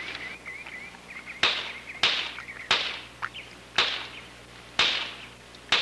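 A gun fired six times, sharp cracks roughly a second apart, over a puppy as it eats. The shooting is there to get the pup used to gunfire so it will not become gun-shy.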